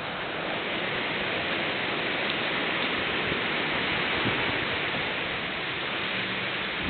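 A steady rushing hiss, building over the first second and then holding even, with a few faint low knocks.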